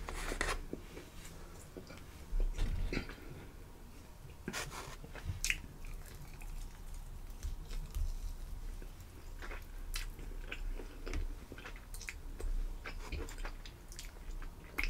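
Close-miked chewing and biting on fried chicken wings, with scattered short crunches.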